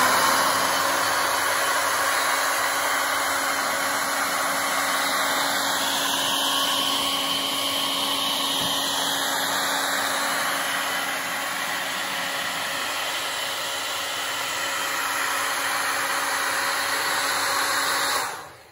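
Hair dryer blowing steadily on freshly painted stones to dry the paint: a steady rush of air over a motor hum, switched off near the end.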